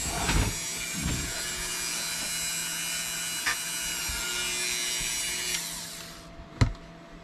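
Dremel rotary tool running at high speed, its bit held to the back of a plastic model car body to melt a hole through; a steady high whine that cuts off about five and a half seconds in and winds down. A single sharp knock follows near the end.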